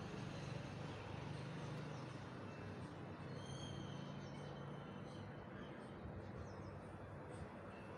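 Faint background ambience: a steady low hum with a few brief high chirps around the middle.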